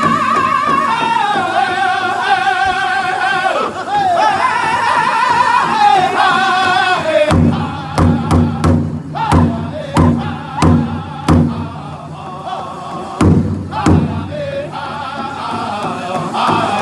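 Powwow drum group singing high-pitched group song over a large hide bass drum struck in unison by several drumsticks. About seven seconds in, the singing drops back and the drum comes in loud, unevenly spaced strikes with short gaps, before softer singing resumes near the end.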